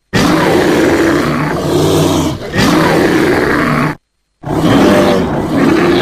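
Brown bear growling in three long, rough calls: two back to back, then a third after a short silence about four seconds in.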